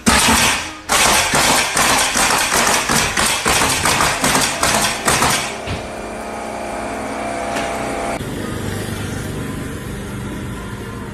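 Pneumatic nail gun fastening a wall panel, firing a rapid string of sharp shots, several a second, that stops about five and a half seconds in.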